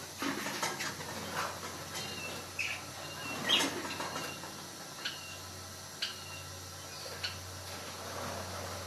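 Budgerigars giving short chirps several times, among light splashing and pattering of bath water as they bathe.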